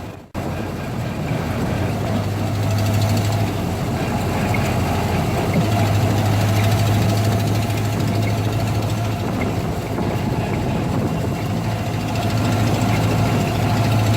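1920 Arrol-Johnson vintage car's engine running steadily, with a constant low hum.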